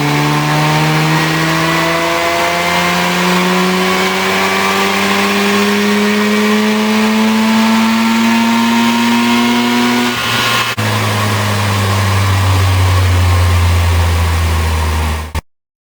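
A car engine running with its pitch rising slowly and steadily for about ten seconds. It then changes suddenly to a lower, steady drone for about five seconds before cutting off abruptly.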